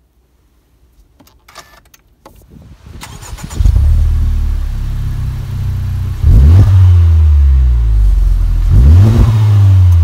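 Honda Civic Type R's 2.0-litre turbocharged four-cylinder started from the push button: a few faint clicks, then it cranks and fires about three and a half seconds in and settles to a fast idle. It is then revved twice, the revs sweeping up and falling back, once about six and a half seconds in and again near nine seconds. Heard from behind its triple centre exhaust tips.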